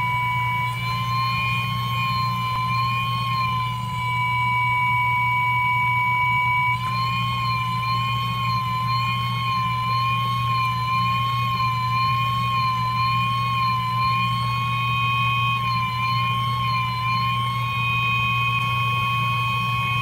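A small electric fan motor on the soldering rework bench running with a steady whine over a low hum; about seven seconds in, the whine begins to waver slightly in pitch.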